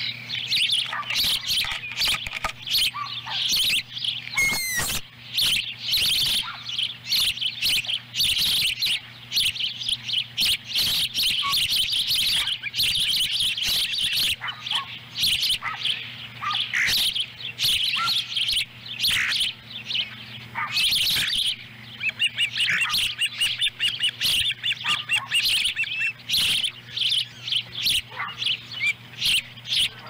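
Juvenile ospreys calling on the nest: a continuous run of rapid, high, piercing chirps, typical of young ospreys begging for food while a fish is being eaten.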